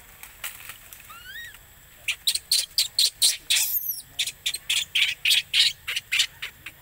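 Newborn pig-tailed macaque crying in distress: a few rising squeals about a second in, then a fast run of short, shrill screams, about three or four a second, with one longer scream in the middle.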